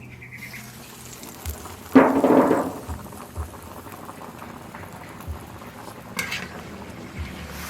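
Beef leg soup boiling in a pot, with a steady bubbling. A louder clatter comes about two seconds in, and a short sharper one near six seconds.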